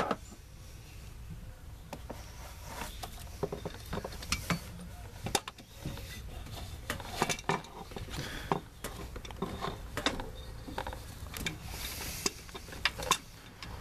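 Ratchet wrench clicking and metal tools clinking in short irregular bursts as the serpentine belt tensioner is bolted back onto a Honda J35 V6.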